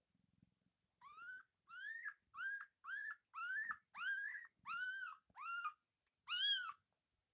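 Newborn kittens mewing: about nine short, high-pitched cries in quick succession, each rising and falling in pitch, with the last one the loudest.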